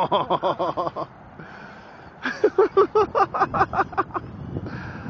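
A person laughing hard in two quick runs of rapid "ha-ha-ha" pulses, the first ending about a second in and the second lasting about two seconds.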